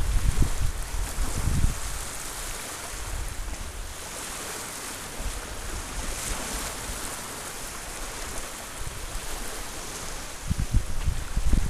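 Small bay waves lapping and washing over a sandy, rocky shore, a steady hiss. Wind buffets the microphone in low rumbles during the first two seconds and again near the end.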